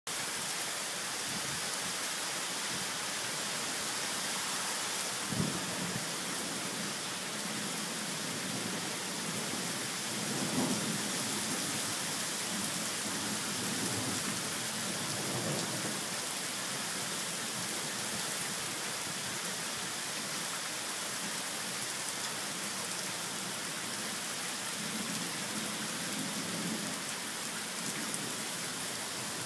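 Heavy rain pouring steadily onto a paved street and driveways, an even hiss with a few brief low swells under it.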